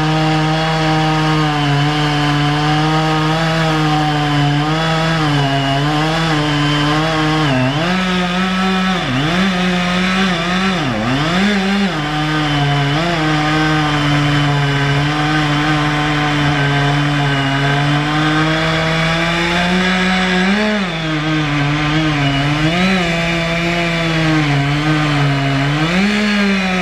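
Large two-stroke chainsaw running near full throttle while cutting through a thick dead pine log. Its engine note holds steady but dips in pitch several times about a third of the way through as the chain loads in the cut, and rises briefly twice later on.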